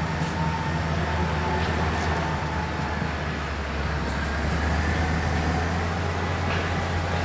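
CAT D6 bulldozer's diesel engine running steadily under load, a deep drone with a faint whistling tone above it.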